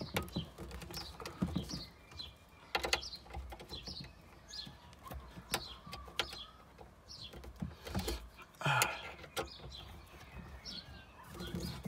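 Scattered sharp clicks and knocks of a hex key and heavy power cables being worked into a car amplifier's screw terminals. Birds chirp briefly and repeatedly in the background.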